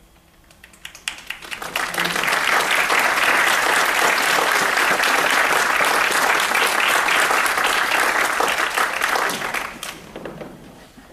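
Audience applauding: a few scattered claps about a second in swell into full applause, which holds steady and dies away near the end.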